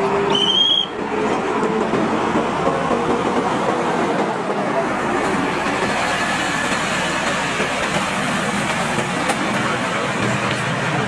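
Steady, even rumbling vehicle noise, with a short high squeal that rises in pitch about half a second in.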